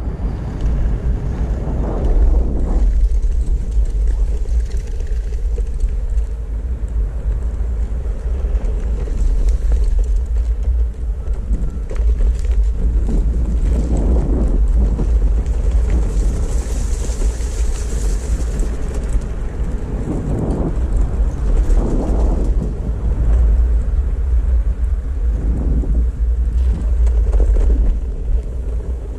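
Backfire Ranger X2 all-terrain electric skateboard riding along: steady heavy wind rumble on the microphone over road noise from the wheels, swelling and easing, with a brief hiss a little past halfway.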